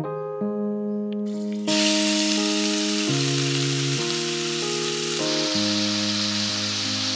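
Minced meat frying in hot oil in a stainless steel pan: a loud, steady sizzle that starts abruptly about two seconds in. Keyboard music plays throughout.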